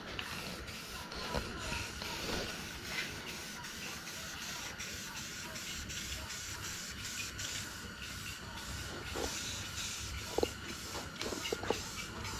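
Aerosol spray-paint can hissing as blue paint is sprayed on in strokes, with a few light clicks in the last few seconds.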